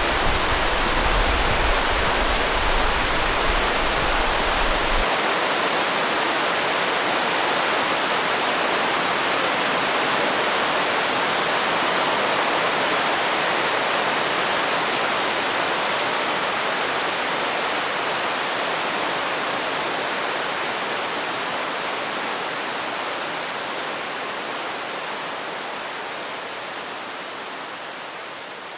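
Waterfall rushing steadily, running heavy with spring snowmelt runoff, with a low rumble under it for the first five seconds or so. The rushing fades out gradually over the last several seconds.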